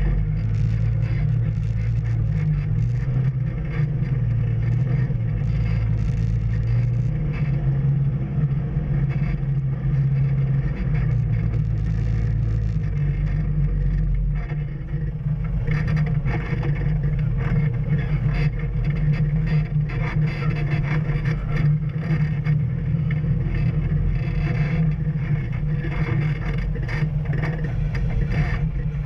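Off-road vehicle's engine running at a low, shifting speed, with frequent rattles and knocks from the vehicle jolting over a rough trail.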